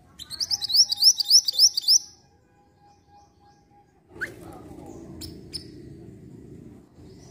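Minivet (mantenan) giving a rapid run of about ten high, upward-sweeping chirps lasting about two seconds. Later come two sharp clicks over a low background hum.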